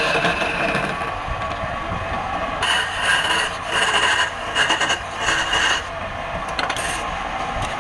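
Wood lathe running with a tool scraping against the spinning wood, with a run of high squealing strokes from about two and a half to six seconds in.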